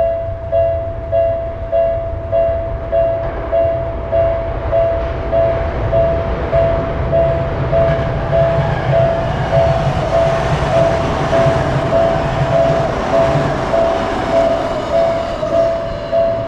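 Japanese level-crossing warning bell ringing its steady 'kan-kan', just under two strikes a second. A passing train rumbles underneath, building up about four seconds in, loudest in the middle and easing off near the end.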